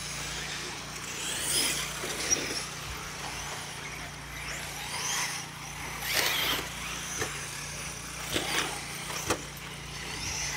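Radio-controlled off-road race cars running on a dirt track: their motors whine up and down in pitch as they speed up and slow down. Several sharp knocks sound over them, the strongest about six and eight and a half seconds in.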